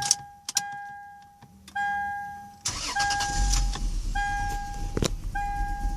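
The car's warning chime beeps steadily, about once every 1.2 seconds. About two and a half seconds in, the Lexus IS300's warm engine is cranked and starts, then runs unevenly with the misfire it shows once warmed up, linked to trouble code P1349 (VVT-i system).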